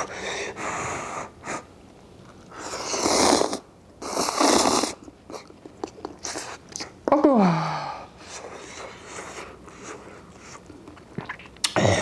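Thin instant cup noodles slurped in two long noisy pulls a few seconds in, followed by a short voiced sound falling in pitch and soft chewing.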